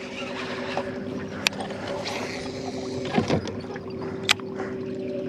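Boat motor running at a steady hum, with a few sharp clicks over it.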